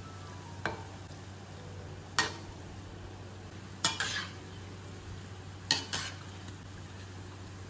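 Banana fritter balls (cekodok pisang) deep-frying in a wok of hot oil with a steady sizzle. A metal spatula stirs them, clinking sharply against the wok six times, the last four in two quick pairs.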